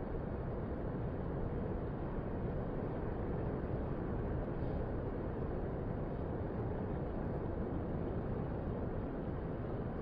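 Steady low rush of ocean surf breaking on a sandy beach, an even noise with no single wave standing out.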